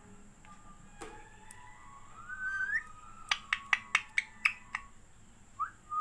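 Rose-ringed parakeet giving a rising whistle about two seconds in, then a quick run of about seven sharp clicks, and two short rising whistle notes near the end.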